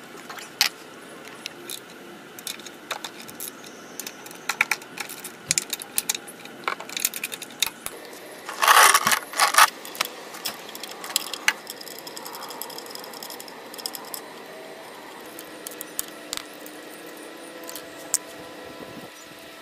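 Small metal parts and tools clinking and clicking against the housing while a 2013 Nissan Leaf electric drive unit is taken apart by hand, with a loud jangling rattle lasting about a second near the middle.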